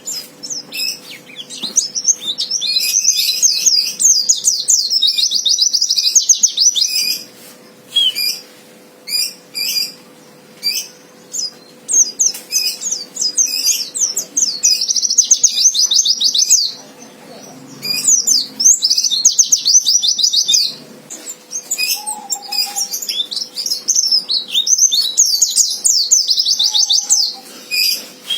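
White-eye (pleci) singing in the aggressive 'fighter' style: four long, fast twittering high-pitched phrases of a few seconds each, with short single chirps between them. A faint steady hum runs underneath.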